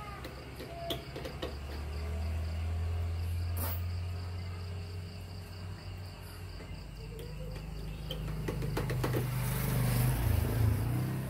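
Crickets chirping in a steady high band, under a low rumble that swells twice. Faint scattered metal clicks come from pliers and a strip of light steel being worked inside a roof-rack lock cylinder.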